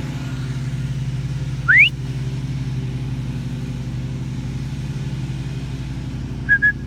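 A lawn mower engine running steadily throughout. About two seconds in, a sharp whistle slides quickly upward in pitch, and near the end come two short whistle pips, like a herding whistle command to a sheepdog.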